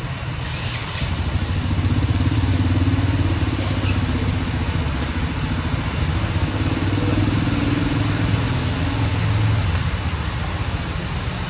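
Motorcycle engine running at low revs, growing louder about a second in and dropping back near the end, over a steady outdoor hiss.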